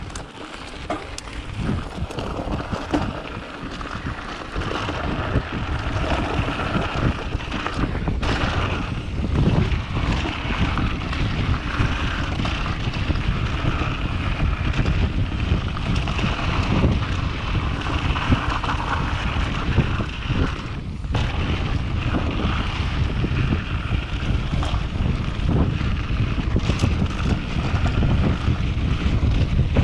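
Yeti SB6 full-suspension mountain bike riding fast down a dirt singletrack: wind buffeting the camera microphone over knobby tyres rolling on dirt, with frequent small clicks and rattles from the bike over bumps. The rushing builds over the first few seconds as speed picks up, then holds steady.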